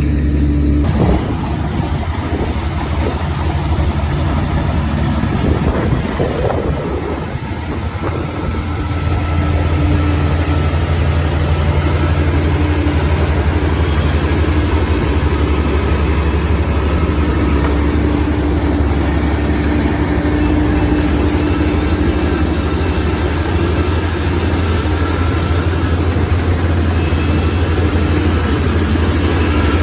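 Kubota rice combine harvester's engine running steadily with a loud low hum, dipping briefly about seven seconds in.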